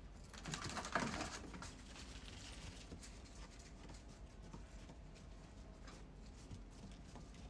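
A dog's paws crunching and pattering softly through snow as it runs, with a louder rustling burst about a second in.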